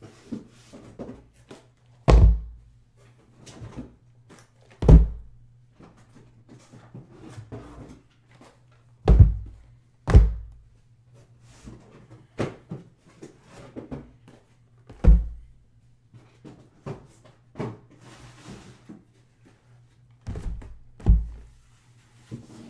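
Sealed 2016-17 Panini Excalibur basketball hobby boxes, shrink-wrapped cardboard, being set down and stacked on a padded table mat: a series of dull thunks, the loudest about two, five, nine, ten and fifteen seconds in and a pair near the end, with lighter knocks and handling noise between.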